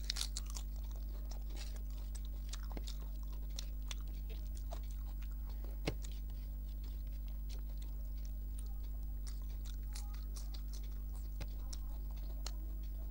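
Close-miked eating: scattered small wet mouth clicks from chewing rice and curry, with a sharper click about six seconds in, over a steady low hum.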